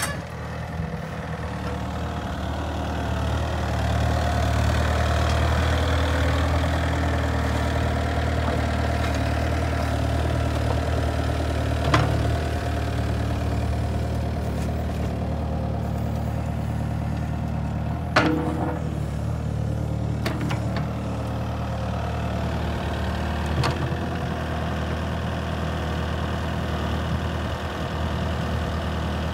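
Kubota U55-4 mini excavator's four-cylinder diesel engine running steadily under light hydraulic load as the boom and bucket are worked, a little louder from about four seconds in. Three sharp knocks come several seconds apart.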